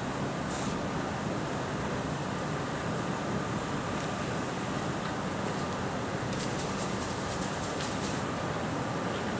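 Steady drone of running machinery with a low hum and a thin, steady high whine, and a few faint light ticks about six to eight seconds in.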